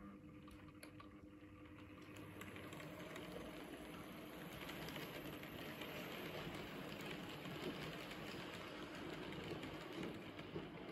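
Rivarossi model train of the streamlined Henschel-Wegmann set running along the track: a faint, steady rattle and ticking of small metal wheels on the rails, growing louder over the first couple of seconds.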